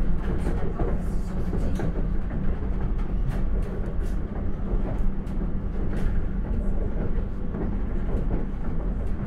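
Alstom Coradia iLint hydrogen fuel-cell train running along the line, heard from aboard: a steady low rumble of wheels and running gear with scattered light clicks.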